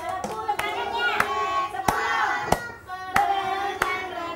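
Sung melody with a steady clap about every two-thirds of a second, like a children's clap-along song.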